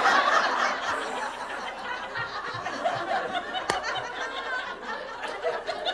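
A roomful of people laughing, loudest at first and slowly dying away, with the speaker laughing along.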